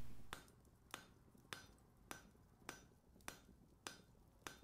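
Faint, evenly spaced ringing metal taps, a little under two a second, like a hammer tapping on an anvil.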